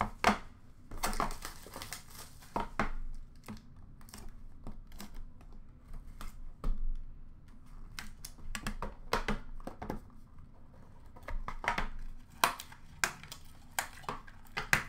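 Hands opening a cardboard trading-card hobby box: irregular crinkling, rustling and tapping of cardboard and wrapping as the box is handled and its lid lifted off. The handling goes quieter for a few seconds in the middle.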